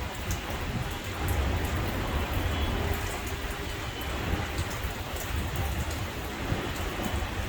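Thunderstorm rain falling steadily, with a low rumble underneath and scattered light ticks.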